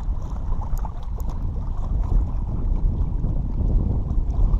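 Wind buffeting the microphone: a loud, gusty low rumble.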